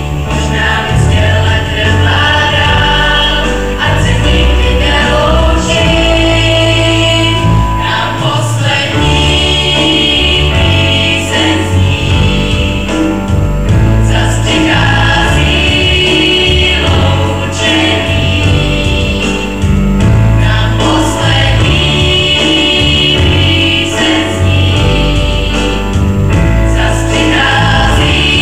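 Teenage school choir of mixed voices singing together, with sustained low accompanying notes under the voices.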